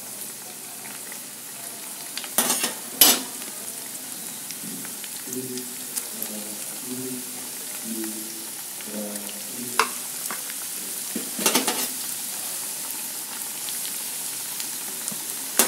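Tempe pieces coated in shredded wonton skin deep-frying in hot oil in a pan, a steady sizzle. A few sharp clicks of a metal spoon against the pan come as pieces are added and moved, twice close together a couple of seconds in and again near 10 and 11 seconds in.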